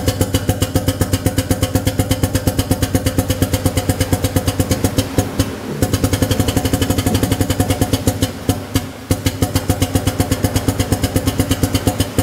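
Pneumatic, air-driven hydraulic power unit of an ATEX power-clamp drum tipper running as it rotates a full 220 litre drum to tip it, a rapid even chugging of about eight beats a second. It breaks off briefly twice partway through.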